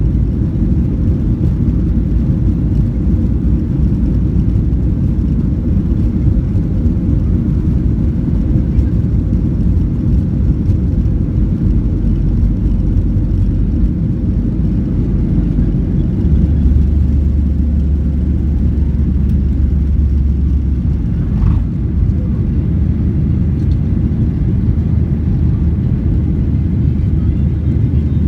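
Jet airliner taking off, its engines making a steady low rumble with a faint steady tone over it. The lowest part of the rumble swells for a few seconds past the middle.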